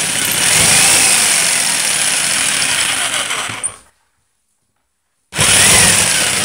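Electric jigsaw running, its blade cutting 2 cm melamine board, the motor's pitch rising and falling. It stops abruptly a little under four seconds in, then starts running again about a second and a half later.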